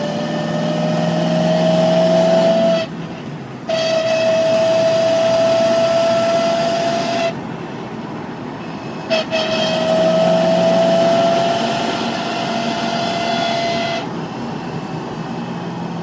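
Corvette C5 drivetrain whine while driving: a loud, single-pitched whine that rises slowly in pitch, cutting out and coming back twice, over steady car running noise. The whine persists after a rear differential replacement, and the owner finds it follows road speed rather than engine rpm, louder on light throttle than at full throttle.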